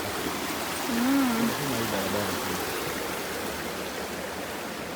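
Steady rush of flowing water from a forest stream, with a person's brief wordless voice about a second in.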